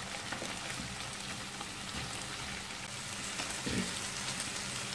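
Chicken breast pieces frying in butter in a pan: a steady sizzling hiss with fine crackles.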